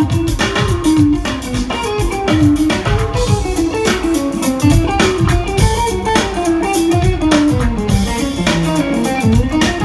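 A live jazz-funk band playing: an electric guitar leads with a winding single-note melody over drums.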